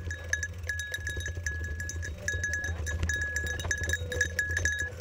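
Mountain bike rolling fast over a rough dirt trail, the bike rattling and clicking over the bumps under a steady rumble. A single high ringing tone keeps cutting in and out.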